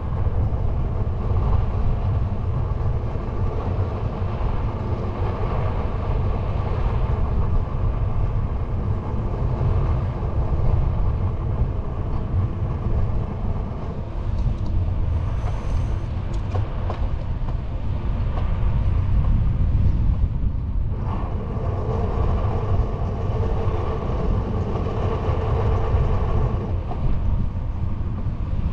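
Steady wind rumble on the handlebar-mounted microphone, with the hum of a fat-tyre bicycle's knobby tyres rolling on asphalt; the hum drops away briefly about two-thirds of the way through.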